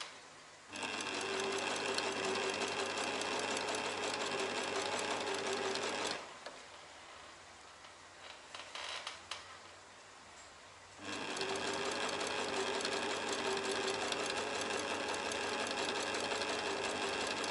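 An old Singer household sewing machine, about 30 years old by the owner's guess, running steadily as it stitches fabric. It runs in two stretches of about five and six seconds, with a pause of a few seconds between them that holds faint clicks.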